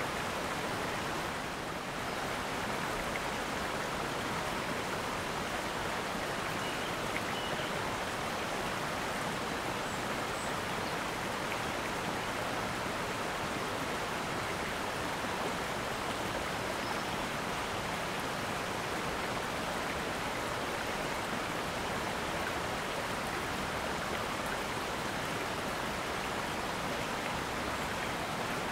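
A river running over a stony bed: a steady, even rush of flowing water.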